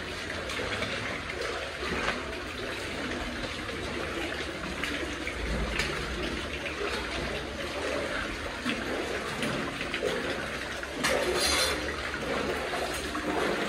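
Water running and splashing, a steady rush with scattered knocks and splashes, growing louder for about a second near the end.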